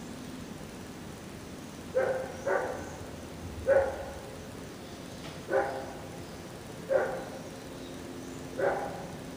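A dog barking: six single barks spaced one to two seconds apart, over a steady low background hum.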